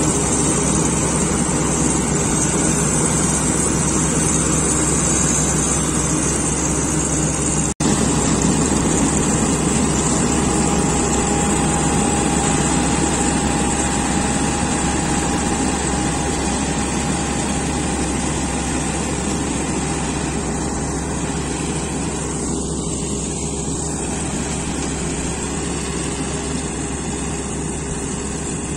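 Preet tracked combine harvester running steadily as it cuts soybeans, an even mechanical drone with a low engine hum, dropping out for an instant about eight seconds in and growing gradually quieter as the machine moves away.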